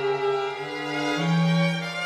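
Background music of slow bowed strings holding long notes, with a new low note coming in a little past the middle.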